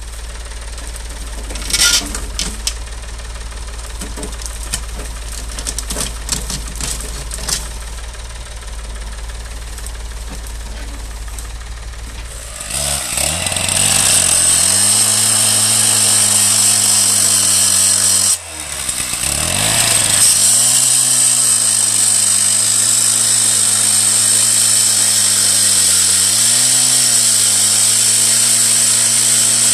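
Tractor engine idling low with a few clanks. About halfway through, a Husqvarna K760 two-stroke petrol disc cutter runs up to full revs and grinds into a steel axle tube, with a steady high metal-cutting hiss. The saw drops off briefly, then goes back into the cut.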